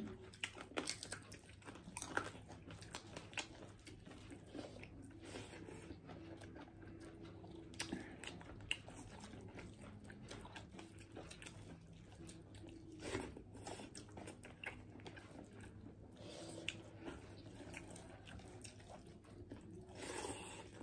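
Close-up eating sounds of people eating rice and mutton by hand: quiet chewing and crunching with many small clicks, and a few louder bites about 13 and 20 seconds in.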